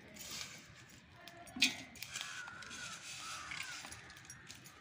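Lumps of jaggery dropping into a metal pot, with one sharp knock about one and a half seconds in, and a bird calling a few times just after it.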